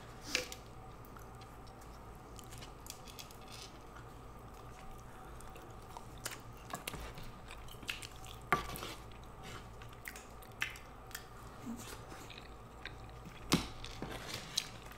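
Quiet eating sounds: scattered chewing and mouth clicks, with a wooden spoon scraping and stirring curry on a metal tray, the sharpest click coming near the end.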